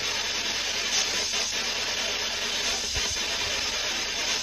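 Steady hiss of background noise, with a couple of faint low thumps about three seconds in.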